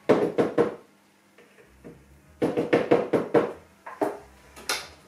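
Hard plastic clacks and knocks from a stand mixer being handled as its bowl and beater head are set in place: a quick run of clicks at the start, another run around the middle, and a couple more near the end. The motor is not running.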